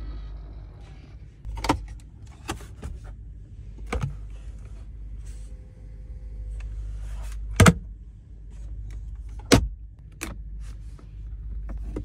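Sharp clicks and knocks, about six of them, as the rear centre-console lids and the refrigerator compartment of a Mercedes-Maybach S 580 are opened and shut by hand; the loudest two come about two-thirds through and near the end. A low steady hum runs beneath.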